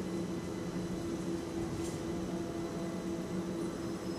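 London Overground Class 378 electric train pulling slowly into the platform, giving a steady low electric hum over an even rumble.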